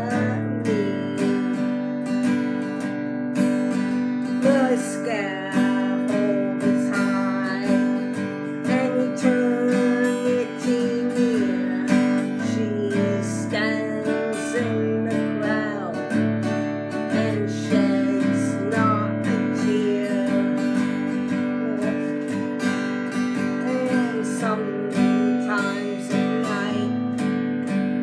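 Acoustic guitar strummed in steady chords under a solo voice singing a slow folk ballad melody.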